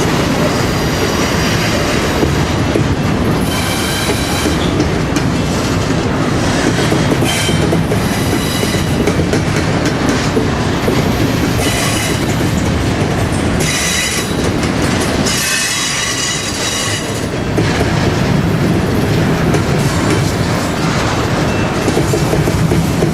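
Train rolling past, its wheels clattering over the rails with a steady rumble. High, thin wheel squeal breaks in several times, longest about sixteen seconds in.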